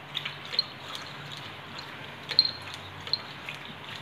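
A dog eating and moving about on a tile floor: scattered small clicks and smacks, the sharpest a little past halfway, over a low steady hum.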